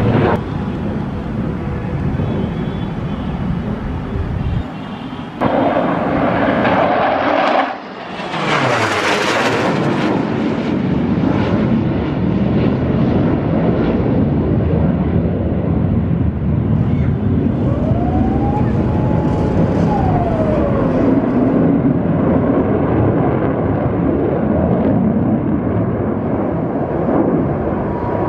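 Twin jet engines of a Mikoyan MiG-29 fighter in a low aerobatic display: loud continuous jet noise. About eight to nine seconds in the fighter makes a close pass, with a sharp hiss and a pitch that sweeps steeply down as it goes by.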